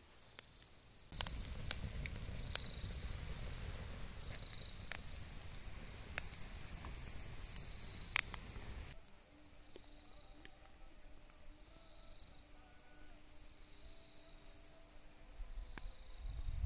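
Insects chirring steadily and high-pitched throughout. For the first half, a wood campfire crackles with scattered sharp pops over a low rumble, which stops abruptly about nine seconds in. A low rumble rises again near the end.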